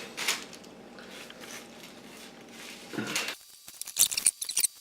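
Quiet room with a single click near the start, then a quick run of sharp clicks and crackles from about three and a half seconds in: handling noise at the table.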